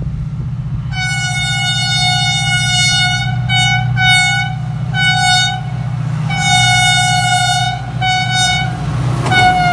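HGMU-30 diesel-electric locomotive approaching under load, its engine droning steadily while the horn sounds a long blast, a few short blasts, another long blast and a short one. A last blast drops in pitch as the locomotive passes.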